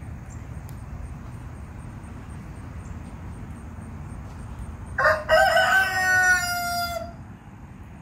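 A rooster crowing once, about five seconds in, a single call of roughly two seconds that holds and then trails off.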